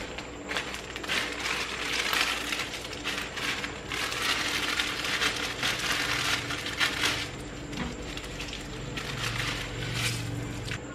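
Plastic instant-noodle packets and seasoning sachets crinkling and being torn open in repeated bursts, with a shorter burst near the end as a sachet is emptied into the pot.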